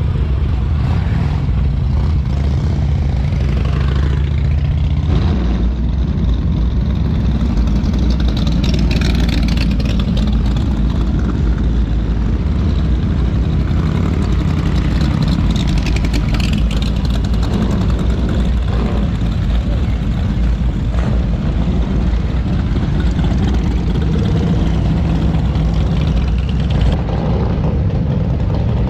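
Motorcycle engines running loud and steady at low revs, a deep exhaust note, with voices faintly behind it.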